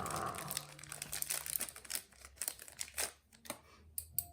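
Plastic packaging crinkling in short, irregular crackles as doll-size tableware is unwrapped and handled.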